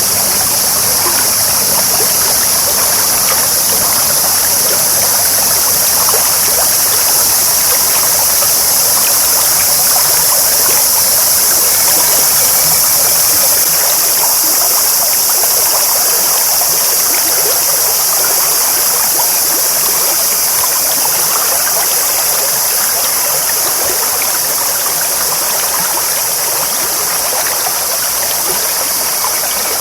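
Clear stream babbling steadily, an even rush of flowing water.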